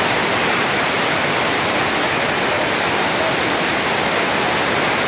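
Swollen mountain river in spate, its whitewater rapids rushing over boulders in a loud, unbroken roar of water.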